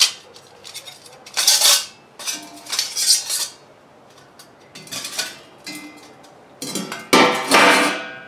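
Thin stainless-steel parts of a gasifier stick stove clinking and rattling against each other as they are stacked and fitted together: a string of short knocks, with a longer, louder rattle of metal on metal near the end.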